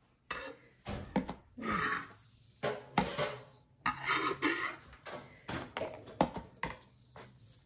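Kitchen utensils and dishes clinking and scraping: an irregular series of short knocks and rustling scrapes while food is handled.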